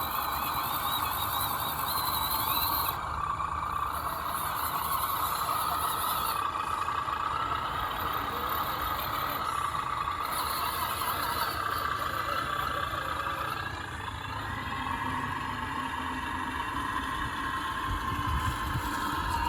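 Electric motor and gear drivetrain of an Axial SCX10 RC crawler whining steadily as it drives, easing off slightly now and then.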